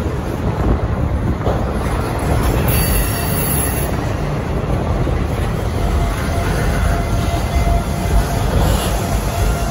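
Freight train of flatcars carrying waste containers rolling past, its steel wheels rumbling steadily on the rails. A brief high squeal comes about three seconds in, and a thin wheel squeal runs through the second half.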